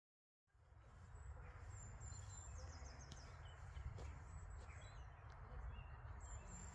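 Faint woodland ambience that starts about half a second in: small birds calling, with a quick high trill of short notes twice, over a low steady rumble.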